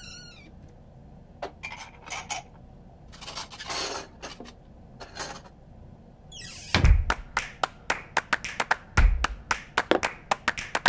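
Scattered light clinks and knocks of kitchen things. About two-thirds in, a quick rising sweep leads into a fast run of sharp clicks and taps, with a deep thump about every two seconds, making a rhythmic percussive beat.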